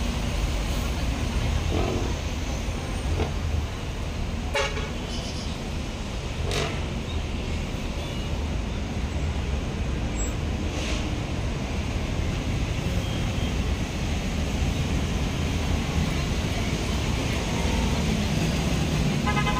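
Busy street traffic with buses running close by: a steady low engine rumble, a little louder near the end. Short vehicle horn toots sound about four and a half and six and a half seconds in.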